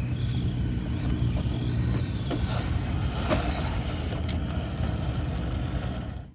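1/10-scale RC crawler truck driving: the electric motor and gears whine, rising and falling, over a steady low rumble, with a few clicks. The sound cuts off suddenly near the end.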